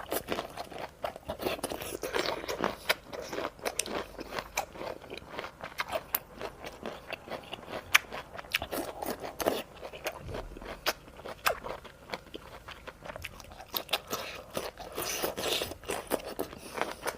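A person chewing and biting into crunchy food, with many sharp, irregular crunches and crackles.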